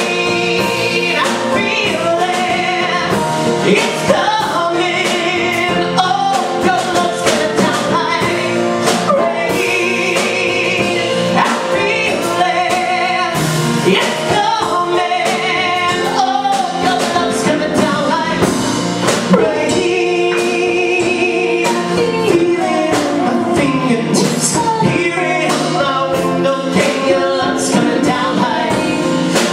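A man and a woman singing a duet live with instrumental accompaniment and a steady beat.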